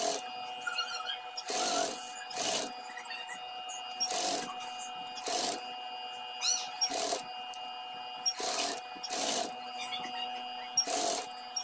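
Flatbed sewing machine stitching in about nine short runs of under half a second, with a steady motor hum between them, as it bastes cord-filled piping onto a garment with long stitches.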